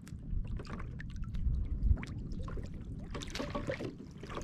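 Choppy sea water lapping and splashing irregularly against the hull of a pedal kayak, over a steady low rumble of wind on the microphone.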